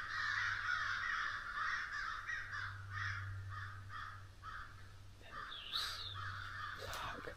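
A flock of crows cawing continuously, many calls overlapping, as they fight with a hawk. One higher call, rising then falling, stands out about six seconds in.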